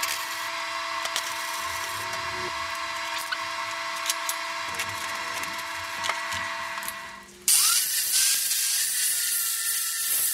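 Electric power tool running steadily with a fixed whine; about seven seconds in, a louder, harsh hiss abruptly takes over, with a whine rising briefly in pitch.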